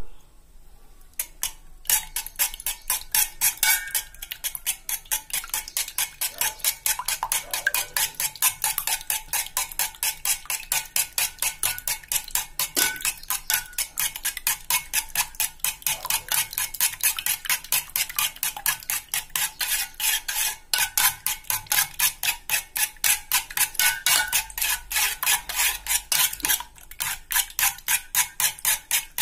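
Spoon beating raw eggs in an aluminium pot: fast, even clinking strokes against the metal, about four or five a second, that start about two seconds in and stop briefly twice.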